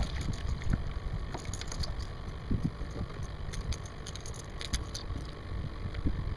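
Wind buffeting the microphone, with scattered light clicks and rattles from the fishing rod and reel being worked against a hooked fish.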